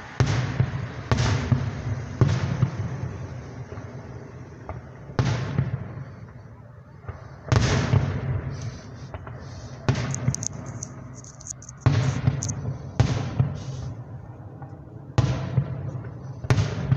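Aerial fireworks shells bursting overhead: about a dozen sharp booms at uneven intervals, each trailing off in a long rolling echo. Bursts of high crackling come from the stars in the middle.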